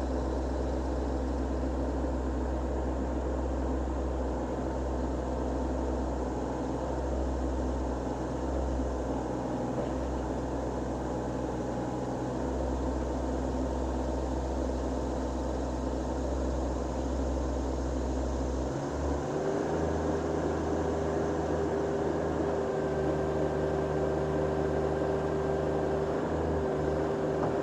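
TYM T25 compact tractor's diesel engine running steadily. About two-thirds of the way through its tone changes and a steady higher whine joins in.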